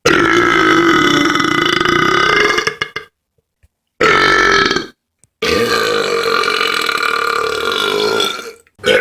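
A person burping loudly three times, with short silences between: a long drawn-out belch of nearly three seconds, a short one of under a second, and another long one of about three seconds.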